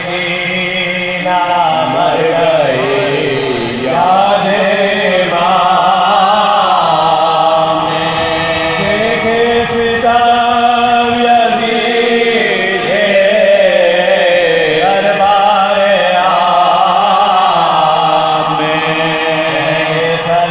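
Soz khwani, a Shia mourning lament chanted unaccompanied by men's voices: a lead voice sings long, bending melodic lines over a steady held note beneath.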